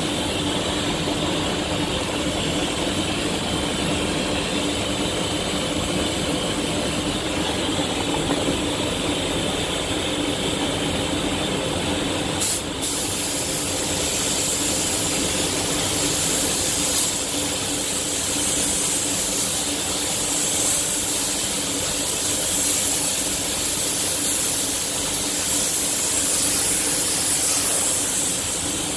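Iwata Hakone spray gun hissing steadily as it lays down a first coat of clear, over a steady low hum. After a brief break about halfway through, the hiss comes back brighter and louder.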